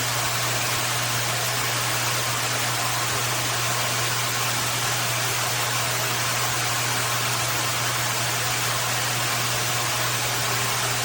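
Water spraying steadily from a Cobbe filtered rain shower head, a dense even hiss with a low steady hum beneath it.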